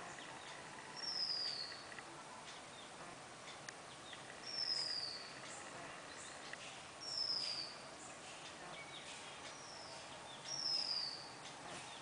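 A bird repeating one high whistled note that slides down in pitch, four times at about three-second intervals, over a steady background hiss with a few faint chirps.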